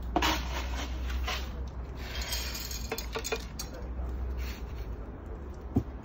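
Gritty scraping and a few light clinks as potting mix is scooped and worked for repotting, with a cluster of short clicks about halfway through and a single knock near the end.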